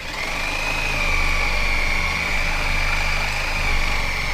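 Reciprocating saw (Sawzall) running steadily as it cuts through the nails holding the old attic-stair frame, with a steady high-pitched whine over a low motor hum.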